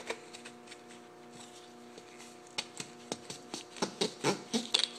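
Hands pushing the parts of a restuffed electrolytic can capacitor together on a metal workbench. Scattered clicks, knocks and scrapes start about halfway through and come faster towards the end, over a steady hum.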